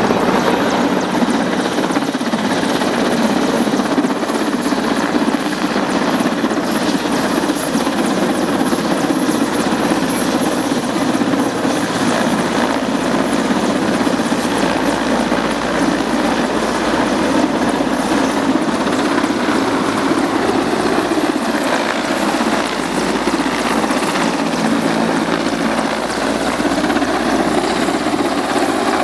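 A Mil Mi-8/Mi-17-type military transport helicopter flying low overhead, its main rotor and turbine engines making a steady, loud noise.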